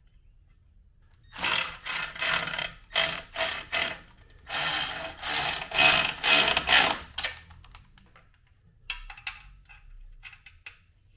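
Hand ratchet wrench clicking in quick back-and-forth strokes, in two runs a few seconds long. A few lighter clicks follow near the end.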